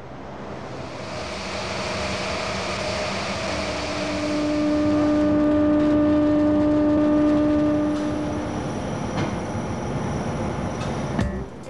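Factory machinery running: a steady mechanical noise that builds over the first few seconds, with a humming whine that sets in after about three seconds and fades out about three seconds before the end. A few sharp clicks follow near the end.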